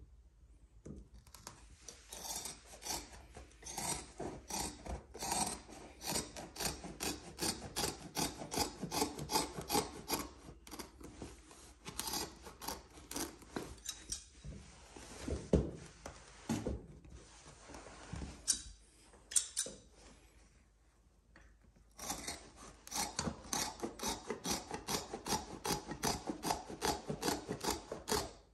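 Rapid, rhythmic rasping strokes, about three a second, of a hand tool rubbing or cutting against carpet. The strokes stop for several seconds in the middle, where there are a few knocks, then start again.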